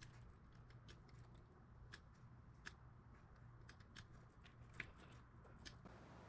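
Near silence with faint, irregular small clicks and ticks from hands working a seatbelt retractor's locking mechanism, over a faint low hum.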